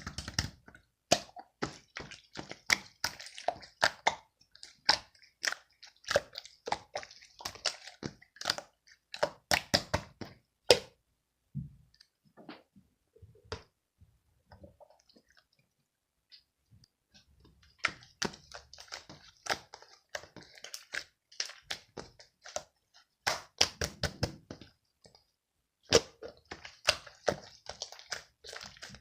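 Toy slime being squeezed and worked by hand, giving rapid, irregular crackling clicks and squishy pops. The clicking thins out and goes quiet for about five seconds midway, then picks up again.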